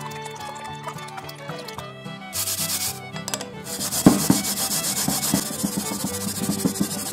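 Mountain yam (yamaimo) being grated on a white plastic grater: rapid rasping strokes start about two seconds in and go on with a short break, with one sharp knock about four seconds in.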